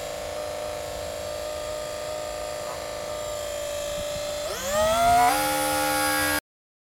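Radio-controlled model jet's motor running with a steady whine, then throttled up about four and a half seconds in: the pitch climbs quickly and holds at a higher, louder whine. The sound cuts off suddenly near the end.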